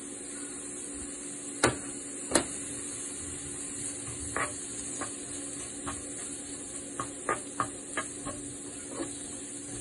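Raw prawns pushed off a cutting board into a hot ceramic-coated frying pan of sautéing vegetables, with two sharp knocks early on, then a wooden spatula tapping and scraping the pan as it stirs them in, over a steady sizzle.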